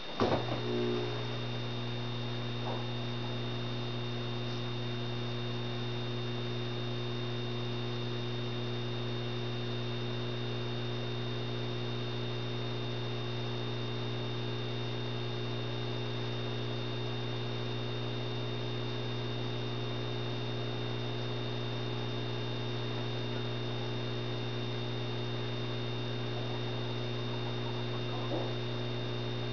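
A 150-watt Osram high-pressure sodium lamp is switched on with a brief sudden noise as it strikes. Its ballast then hums steadily and low at mains frequency while the lamp warms up.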